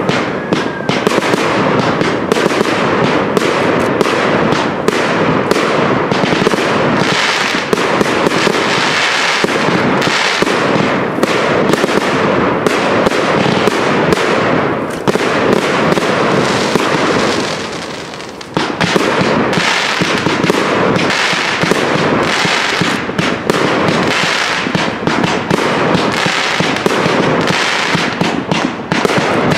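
Fireworks display: a dense, continuous barrage of aerial shells launching and bursting in rapid succession, with crackle between the bangs. It dies down briefly a little past halfway, then resumes suddenly.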